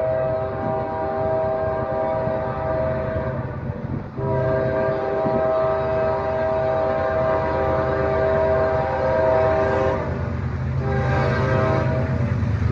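Diesel freight locomotive's horn sounding long blasts as the train approaches, broken by short gaps about four seconds in and again near ten seconds, over the low rumble of the engine, which grows toward the end.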